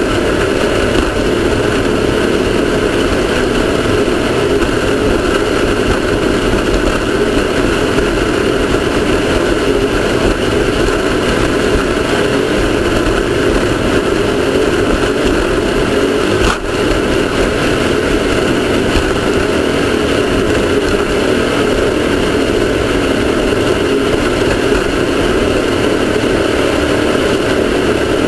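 Off-road race car engine running hard and steady, a dense unbroken roar with one brief dip in level about sixteen seconds in.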